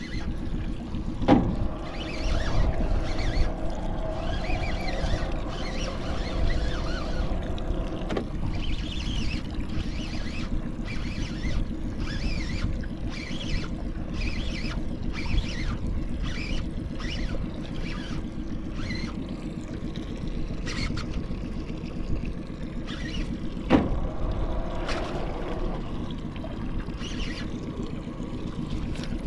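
Small boat's motor running with a steady hum, with wind buffeting the microphone and water splashing against the hull. There are two sharp knocks, about a second in and again near the end.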